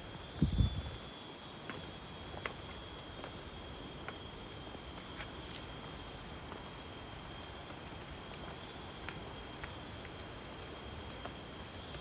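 Steady high-pitched insect drone, several even tones held without a break, with faint scattered ticks. A low thump about half a second in.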